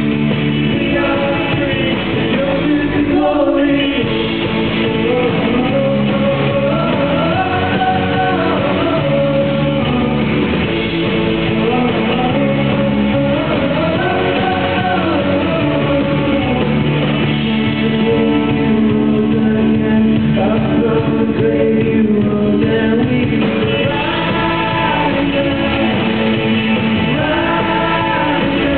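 Live worship band playing a song, with lead vocals over electric guitar and keyboard, heard from the audience in a large hall.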